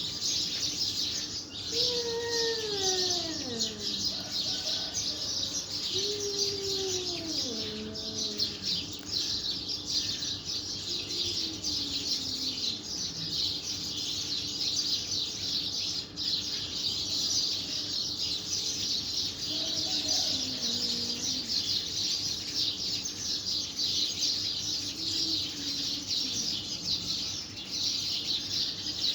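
A cat yowling in long, falling wails, about five times spread through the stretch, over steady high-pitched chirping in the background.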